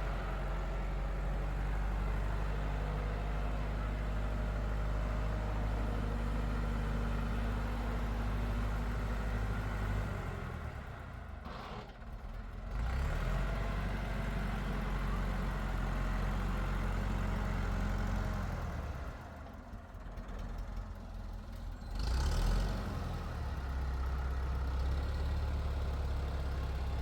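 A motor vehicle's engine running with a steady low drone, which fades out twice for a few seconds before picking up again.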